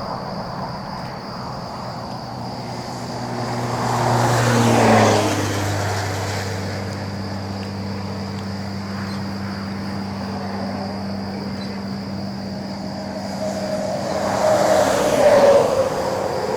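Road traffic passing on a nearby highway: one vehicle goes by about four seconds in and another near the end, each swelling and then falling in pitch as it passes. A faint steady high-pitched tone runs underneath.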